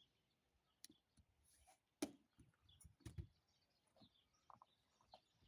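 Near silence, broken by a few faint short clicks and knocks, the clearest about two seconds in.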